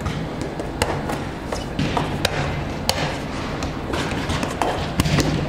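Volleyballs being hit and bouncing in a large, echoing sports hall: many sharp smacks and thuds every half second or so over a steady hall rumble, with a louder smack about five seconds in.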